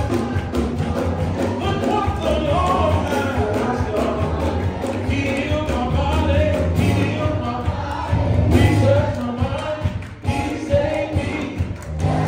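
Gospel music with voices singing over a strong bass line, from a church worship band and singers.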